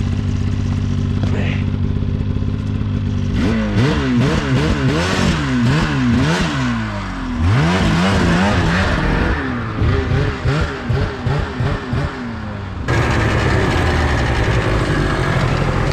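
Snowmobile engine running steadily. From about three seconds in, its revs rise and fall again and again in quick swings. About three seconds before the end it settles into a steady, higher-pitched run.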